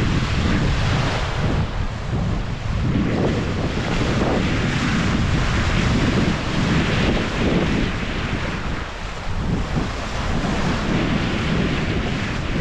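Wind buffeting the microphone in irregular gusts over the rushing wash of sea water around the bow of a square-rigged brigantine under sail.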